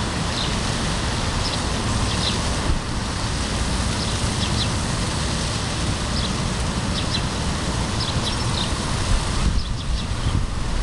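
Steady wind rumbling on the microphone, with small birds chirping in short high bursts every second or so.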